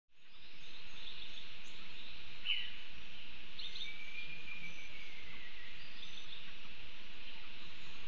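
Tropical forest ambience: a steady high hiss with a few short, sharp bird calls, and one long thin whistle that slides slowly downward about halfway through.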